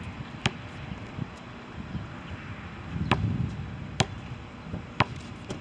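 Basketball bouncing on an outdoor concrete court: four sharp, separate bounces, one near the start and three spaced about a second apart in the second half.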